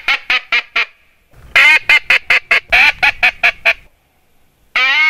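Haydel's BB-10 Big Blue bluewing teal call, a double-reeded call with Mylar reeds, blown by mouth in three runs of quick, short notes, each run opening with a longer first note; the last run starts near the end.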